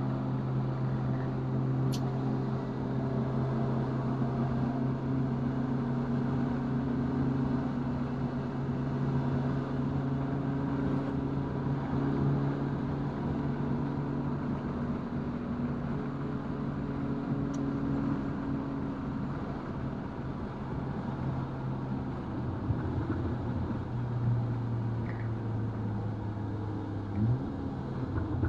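2019 VW Golf R's turbocharged 2.0-litre four-cylinder engine running at a steady pitch for about twenty seconds, then varying, with a quick rise and a settle to a slightly lower note near the end.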